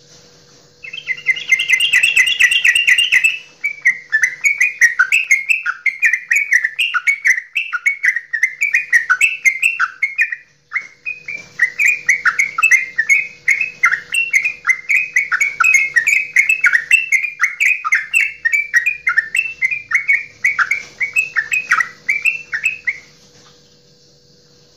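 Caged yellow-vented bulbul (trucukan) singing a long, rapid, bubbly chattering song of the 'goklikan' kind. It breaks briefly about ten seconds in and stops shortly before the end.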